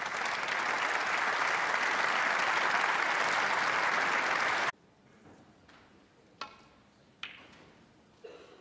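Snooker arena audience applauding, cut off abruptly after about four and a half seconds; a few faint single clicks follow.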